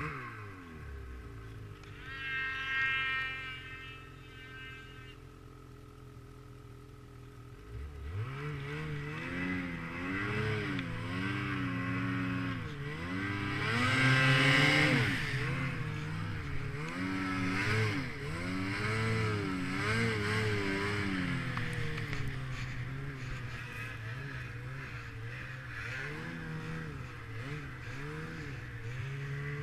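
Snowmobile engine running, dropping off at first, then from about eight seconds in revving up and down again and again under the throttle, loudest about halfway through. A brief high whine comes a few seconds in.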